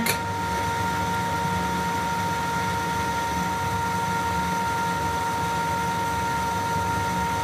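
Steady machine hum with a constant whine, as of fans running in a workshop room.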